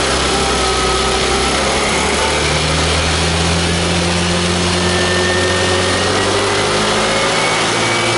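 Suzuki Burgman 125 fuel-injected scooter's single-cylinder four-stroke engine held above idle under a light throttle, running steadily with a slight rise in pitch partway through. The revs are raised to test the charging system, which the meter shows holding at only about 13.4 volts.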